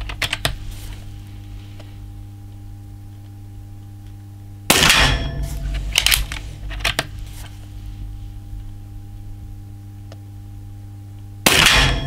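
Two shots from a Benjamin Fortitude Gen2 .22 PCP air rifle, one a little under five seconds in and one near the end, each a sudden crack with a short tail. In between come a few sharp clicks as the manually cocked action is worked for the next pellet.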